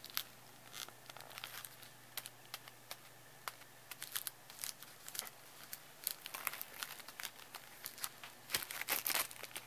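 Cellophane crinkling in scattered sharp crackles, growing thicker and louder near the end.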